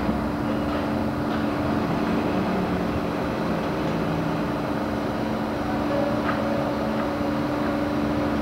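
Construction-site machinery running with a steady mechanical rumble and a low hum, with a few faint clicks.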